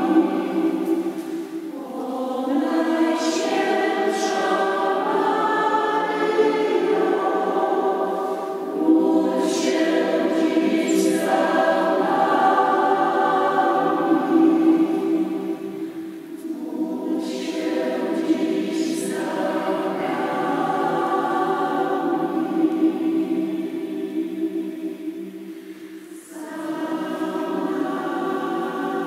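Mixed choir of women's and men's voices singing a church song in sustained phrases, with short breaks between phrases.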